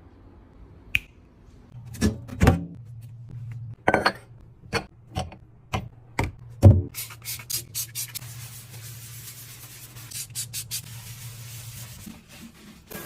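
Hands handling household items, with a string of sharp clicks and knocks as things are picked up and set down. About seven seconds in it gives way to a longer stretch of rubbing and scraping, as of wiping or scrubbing a surface, over a low steady hum.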